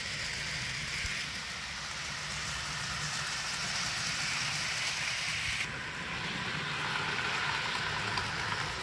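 Bachmann HO-scale Thomas electric locomotive and its freight cars running on steel-alloy E-Z track: a steady motor hum and rolling rattle of the wheels, which changes abruptly about five and a half seconds in.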